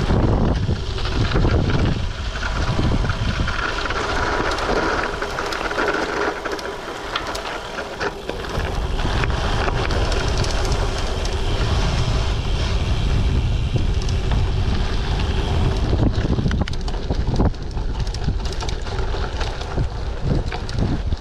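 Wind buffeting a GoPro's microphone while riding a Giant TCX gravel bike on a dirt trail, with the tyres crunching over the ground and many sharp clicks and rattles from the bike. The low wind rumble eases briefly about seven seconds in.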